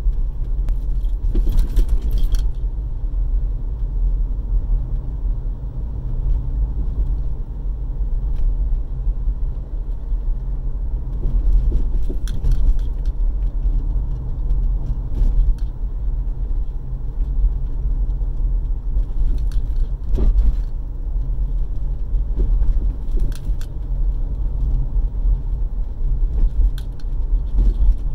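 Low road rumble inside the cabin of a moving 2009 Subaru Forester, with short clunks and rattles coming through several times, scattered irregularly. These clunks fit the knocking of a worn front sway bar bushing.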